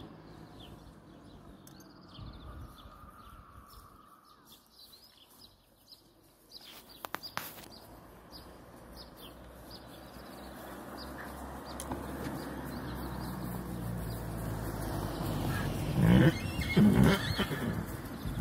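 Horse neighing in two loud bursts near the end, over a rising rushing noise; a few sharp clicks about seven seconds in.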